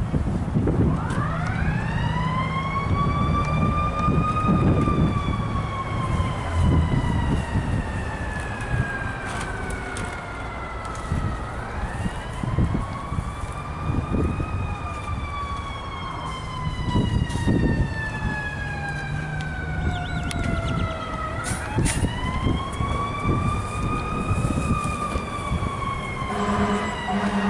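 Fire engine siren rising quickly and then slowly falling, three times over, above the truck's engine rumble. A low horn sounds near the end.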